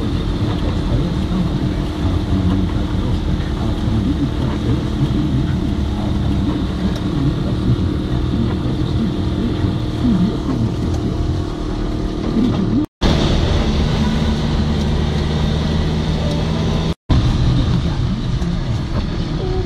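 Car driving along a rain-soaked, flooded road, heard from inside the cabin: a steady engine hum with tyre and water noise. The sound cuts out to silence briefly twice.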